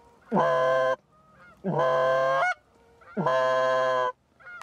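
Goose honks: three loud, evenly spaced calls about a second and a half apart, each lasting most of a second and opening with a quick upward scoop.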